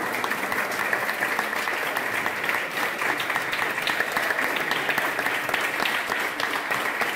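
Audience applauding, a dense steady clapping that holds at an even level throughout.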